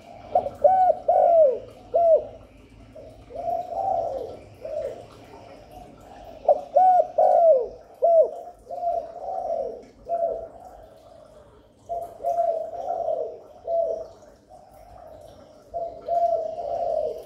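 Spotted dove cooing: phrases of several short, low coos that repeat every few seconds. This is the 'gáy gù' call of a kept dove, used to draw wild doves in.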